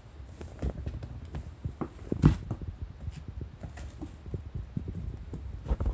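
Light, irregular pattering and knocks from a black-and-white kitten moving about on tatami mats, with one louder thump about two seconds in.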